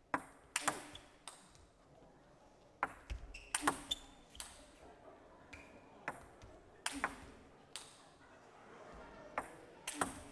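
Table tennis ball clicking sharply off the rackets and the table, in short clusters of hits with pauses between.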